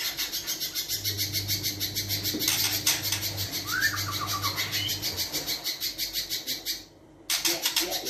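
Caged spiderhunter (pijantung pisang) calling: a long, unbroken run of rapid, harsh notes, about eight a second, that stops briefly near the end.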